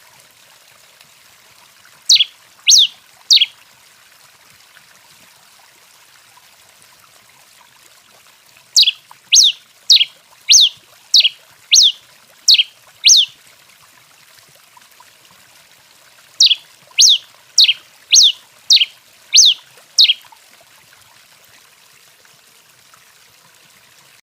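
Rufous-collared sparrow (tico-tico rei) giving loud, sharp descending whistled notes in three runs: three notes, then eight, then seven, each run about two notes a second, with pauses between.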